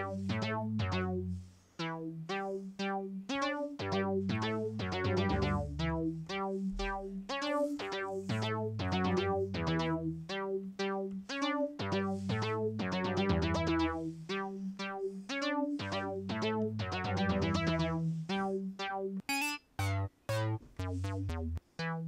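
Synthstrom Deluge groovebox playing a looped sequence of short, plucky synth notes over a repeating bass line. Near the end the pattern turns choppy, with short stabs and gaps of silence.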